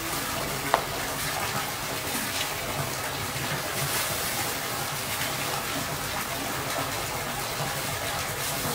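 A steady rushing noise, even throughout, with one sharp click less than a second in.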